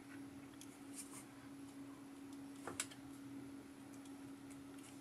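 Faint scattered clicks and taps of small plastic laptop parts being handled during disassembly, with one sharper click a little under three seconds in, over a steady low hum.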